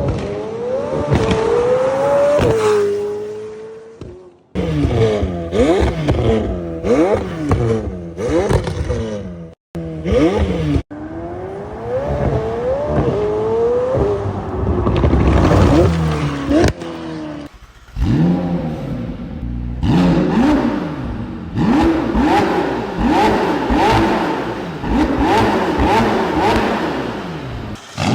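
McLaren twin-turbo V8 exhaust in a string of short clips: the engine revs and accelerates hard, its pitch climbing and dropping back at each gear change. Abrupt cuts fall between clips, and the second half has many quick rises in a row.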